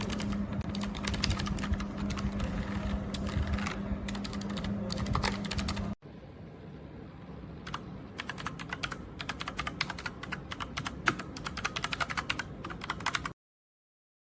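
Typing on an Armaggeddon SMK-9R low-profile mechanical keyboard with Outemu switches: rapid, dense key clicks. About six seconds in, the sound cuts to a quieter stretch of typing, and a steady low hum under the first part drops out. The typing stops shortly before the end.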